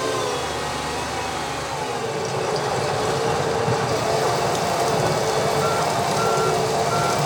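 Heavy farm machinery at a sugar beet harvest: a diesel engine running steadily while a reversing alarm beeps a few times in the second half.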